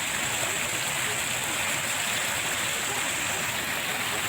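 Steady rushing noise of running water, even in level throughout.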